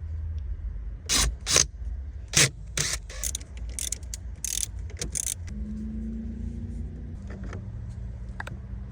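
Sharp clicks and clacks of parts being handled and fitted on a 1994 Chevy Suburban's steering column during an ignition lock cylinder change. A steady low hum starts about five and a half seconds in.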